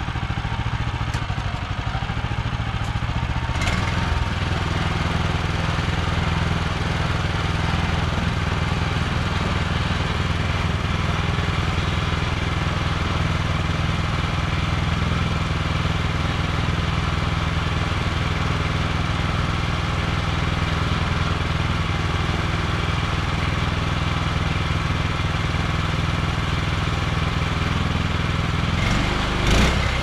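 Wood-Mizer LX25 sawmill's engine running steadily, its note changing to a stronger, steady pitch about four seconds in.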